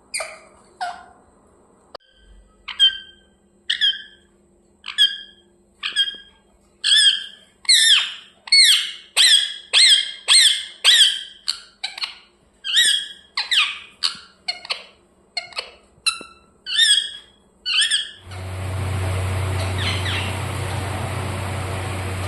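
Pet parrot chirping: a long run of short, sharp, squeaky chirps, one to two a second, each sweeping down in pitch. The chirps stop near the end, where a steady low hum with a hiss takes over.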